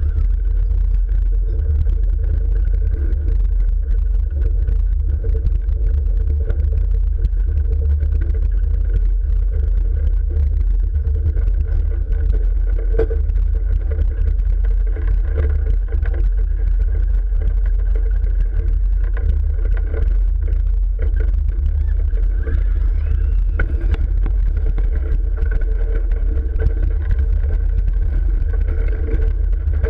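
Train of Rutschebanen, Tivoli's old wooden roller coaster, running along its track: a loud, steady low rumble from the wheels with a faint, even whine over it.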